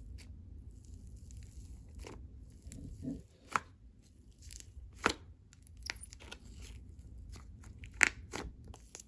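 Slime being pressed and stretched by hand, giving scattered sticky pops and clicks, the loudest about eight seconds in.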